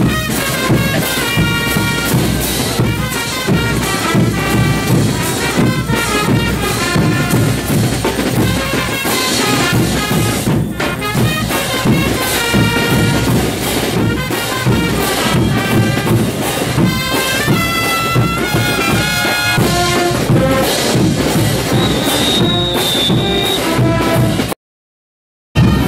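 Live street brass band with bass drums and crash cymbals playing a lively dance tune for a religious festival dance troupe. The music breaks off into silence for about a second near the end.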